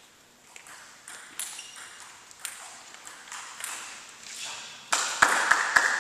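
Table tennis balls clicking off tables and paddles, scattered sharp hits echoing around a large hall; near the end a quick run of louder clicks comes close together.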